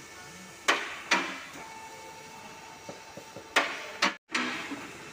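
Sharp knocks in two pairs, the knocks in each pair about half a second apart, each ringing out briefly, with a few light clicks between the pairs. The sound cuts out completely for a moment just after the second pair.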